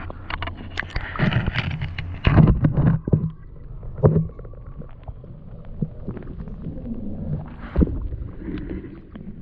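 Muffled underwater gurgling and rumbling as a camera microphone is dipped into a turtle tank, with irregular dull knocks and bumps, the loudest about two and four seconds in.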